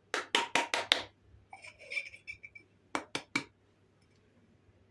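A drinking glass knocked against the rim of a plastic mixing bowl to shake out the last of the powdered sugar: a quick run of about five taps, a glassy clink with a brief ring, then three more quick taps.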